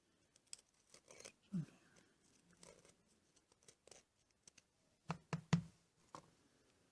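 Small hand tool scraping and picking at a car door lock part, scratching off a thick crusted deposit, with scattered light scratches and clicks and a quick cluster of three sharper knocks about five seconds in.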